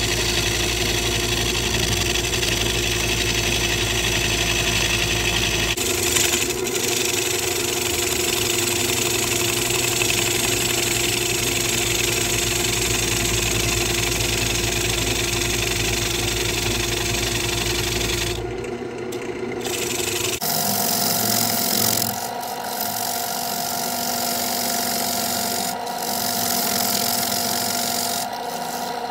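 Wood lathe running with a steady hum while a bowl gouge cuts the inside of a spinning wooden bowl, a continuous scraping hiss of the tool peeling off shavings. The tone of the cut changes abruptly a few times.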